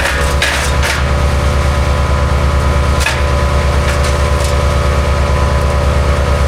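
MechMaxx B200 8-inch wood chipper's gas engine running steadily under load while branches are fed through, with the sharp cracks and snaps of wood being chipped in the first second and again around three seconds in.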